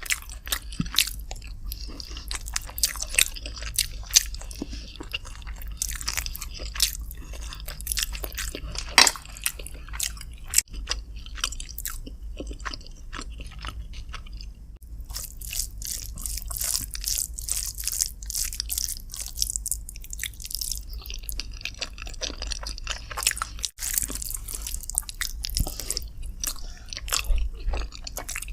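Close-miked eating: a person chewing and biting into chicken with rice, a dense run of short wet clicks, smacks and small crunches.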